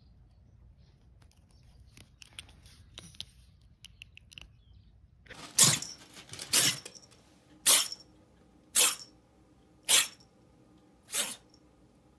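A grey tabby kitten sneezing six times in a row, about once a second, starting about halfway through. Before that there are only faint clicks and rustles.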